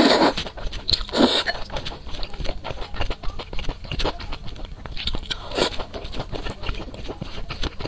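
Close-miked eating: thick saucy noodles slurped at the start, then steady chewing with many small wet mouth clicks and smacks. Shorter slurps come about a second in and again after about five and a half seconds.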